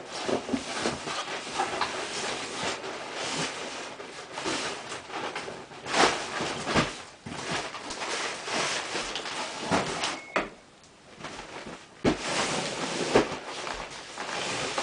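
Cardboard boxes and packing paper being handled: rustling and scraping, broken by a few sharp knocks and bumps.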